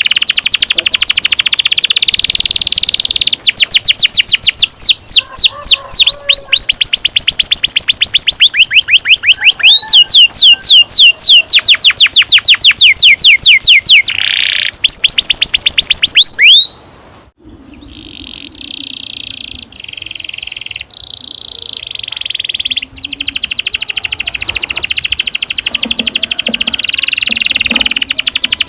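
Domestic canary singing long rolling trills: fast runs of rapidly repeated sweeping notes. The song breaks off for a moment about two-thirds of the way through, then goes on in steadier trilled phrases.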